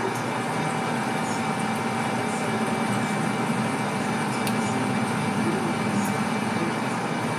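Metal lathe running steadily with its four-jaw chuck spinning, a constant hum with a faint high whine, as a parting tool cuts the muzzle end off a relined rifle barrel.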